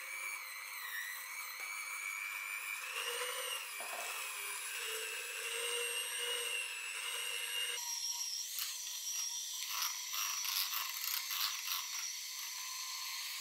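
Electric hand mixer running, its beaters whirring through pancake batter in a glass jug with a steady high whine that wavers slightly in pitch. The sound changes about eight seconds in.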